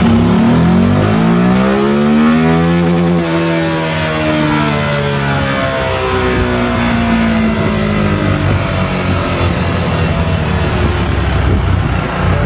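Motorcycle engine running a chassis-dynamometer power pull: revs climb for about three seconds, then fall slowly over the next several seconds and settle back toward idle.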